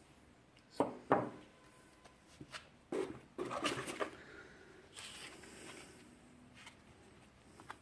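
Hand-handling noises of unpacking: two sharp knocks about a second in, a burst of rustling and clicks about three seconds in, and a softer rustle around five seconds, as packaged fireworks and their wrapping are moved about.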